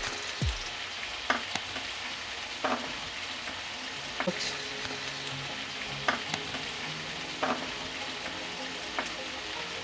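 Chopped onion, capsicum and tomato sizzling in hot mustard oil in a metal kadai, a steady frying hiss with a few short clicks every second or so.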